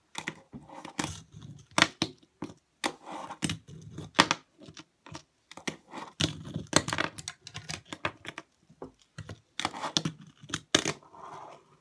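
A fingerboard being ridden over a wooden desk and a small ledge: many sharp clacks as the tiny board pops and lands, with short stretches of wheels rolling and trucks scraping in between.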